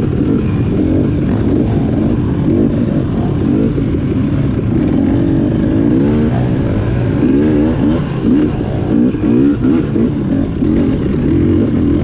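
Dirt bike engine revving up and down over and over as the throttle is worked during an off-road hare scramble ride. The pitch rises and falls in quick short revs, more often in the second half.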